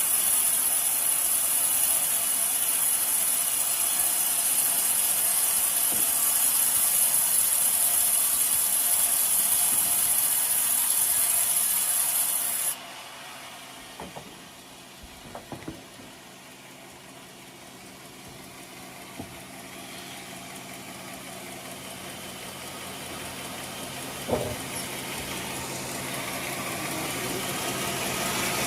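Portable sawmill cutting a coconut log, a steady loud sawing noise that drops off abruptly about halfway through. A few knocks follow, then the sawing noise gradually builds back up toward the end.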